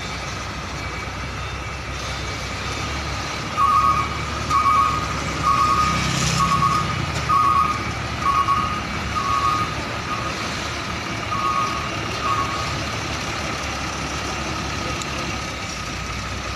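Container truck's diesel engine running as the tractor-trailer manoeuvres, its reversing alarm beeping about once a second, nine times, a few seconds in. A short hiss of air comes partway through.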